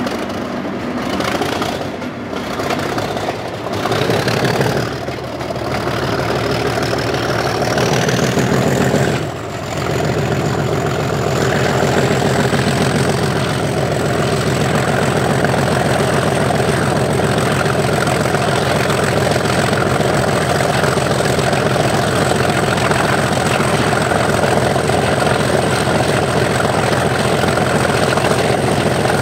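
Class 37 diesel locomotive's English Electric V12 engine under power on the move, a heavy thrash with a turbocharger whistle that climbs in pitch over the first nine seconds or so and then holds steady. The loudness dips briefly just after the whistle levels off, then the engine runs on steadily.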